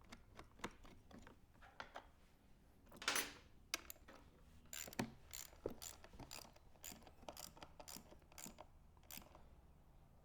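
Quiet, irregular clicks and clinks of hand tools working on metal as carburetor bolts are fitted, with a brief scrape about three seconds in and a denser run of clicks in the second half.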